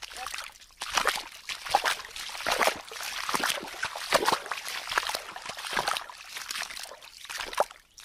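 Bare feet wading and splashing through a shallow stream, a run of irregular sloshing steps over the water's running trickle.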